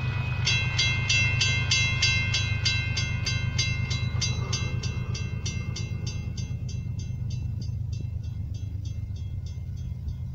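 Railroad grade-crossing bell ringing at about three strikes a second as the crossing activates, loud for the first six seconds and then fainter, over a low steady rumble.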